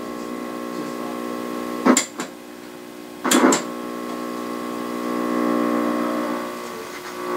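Steady buzz from the speaker of a 1960s Canadian Marconi portable vacuum-tube TV, a stack of even tones, with two sharp clicks about two and three and a half seconds in as the knob on the side of the set is turned. The buzz swells about five seconds in.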